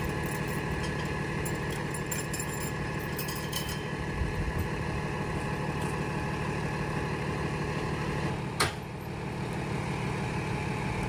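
A 16-ton medium-duty wrecker's engine running steadily while its boom lifts a forklift, with steady whining tones over the engine hum. A single sharp click about eight and a half seconds in.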